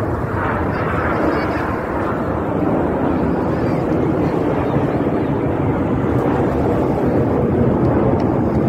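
Steady roar of aerobatic display jets flying overhead.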